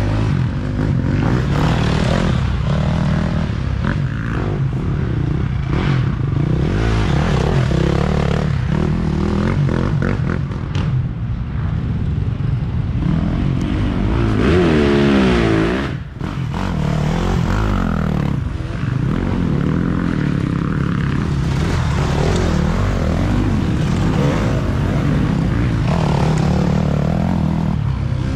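Dirt bike engine revving up and down under constantly changing throttle. About halfway through it climbs in one sharp rev, and the throttle snaps shut for a moment. The engine sound is mixed with scraping and clatter.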